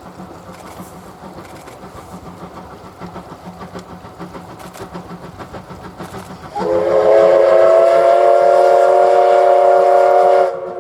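C11-class steam locomotive running, then its steam whistle sounding one long, loud blast with several tones at once, starting about six and a half seconds in and cutting off sharply after about four seconds.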